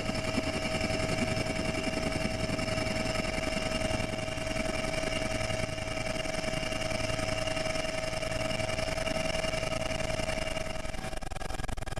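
Helicopter turbine engine and rotor running steadily, heard from inside the cabin as it lifts off and climbs, with a constant high whine over the engine and rotor noise.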